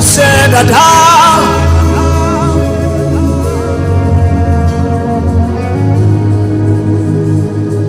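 Worship music with no words: held keyboard chords over a steady bass, with a wavering lead melody in the first few seconds.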